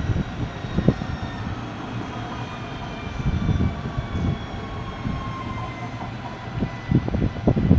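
Alstom Citadis X05 tram running away along its track, a faint whine from it slowly falling in pitch. Uneven wind rumble on the microphone, strongest near the end.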